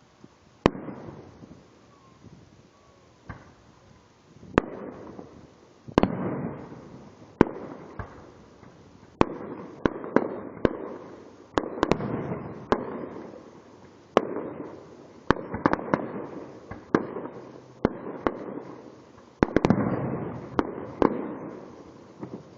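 Fireworks going off: a run of sharp booms at uneven spacing, each followed by a rumbling, crackling tail, coming thickest around the middle and again near the end.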